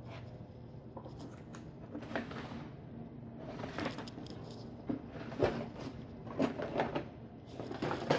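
Scattered light clicks and scrapes of small metal tools on an Abus euro cylinder lock, working at its C-clips to take it apart.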